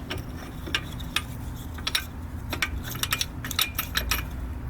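Irregular light metallic clicks and clinks from small metal pieces being handled, over a low steady background hum.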